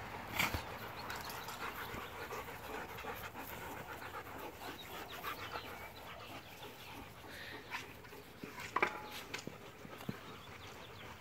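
German Shepherds panting at play, with a few short sharp sounds, the loudest about nine seconds in.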